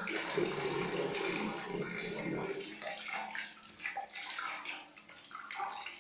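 Hot water from a wood-fired water heater pouring out of a steel outlet pipe into a steel bucket of water, a continuous splashing stream. It turns more uneven after about two and a half seconds, as a hand is held under the stream.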